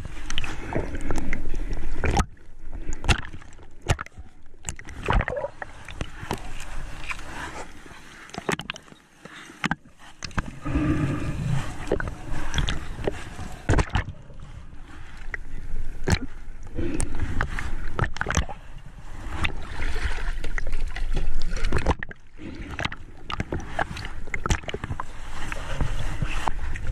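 Water sloshing and gurgling as heard underwater around a swimming diver, with frequent sharp clicks and knocks and a brief dip to quiet partway through.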